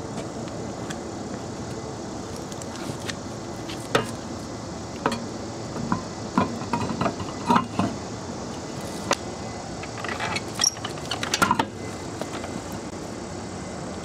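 Scattered clinks and knocks as a car's front wheel is refitted to the hub and its plastic wheel cover fitted back on, over a steady outdoor hum.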